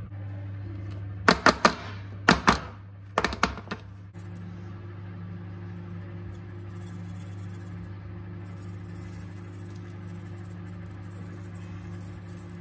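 Sharp knocks on an aluminium cake tin as batter is poured in and settled: several loud knocks in three quick groups in the first few seconds, then a steady low hum.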